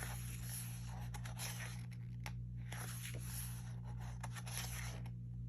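Pages of an album photobook being turned and handled: paper rustling and scraping in several swishes, with short pauses about two seconds in and near the end.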